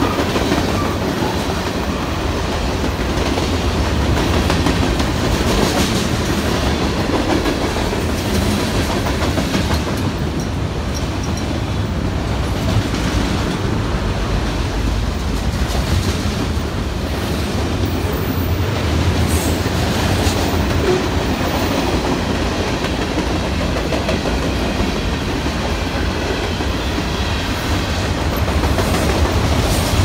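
Freight cars of a long CN freight train (tank cars, lumber-laden flatcars, boxcars) rolling past close by: a steady, loud rumble and clatter of steel wheels on the rails.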